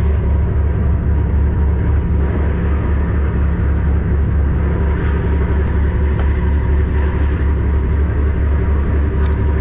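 A tugboat's diesel engine running steadily underway: a deep, even drone with a fast pulse and a steady hum above it.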